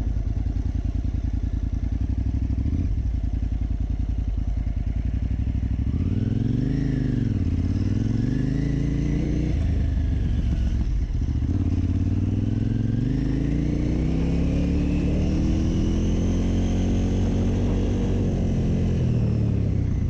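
KTM 950 Super Enduro R's V-twin engine running at low revs with a steady beat, then revved up and back down in a quick blip about six seconds in, and pulling through a longer rise and fall in the second half as the bike accelerates along a dirt track.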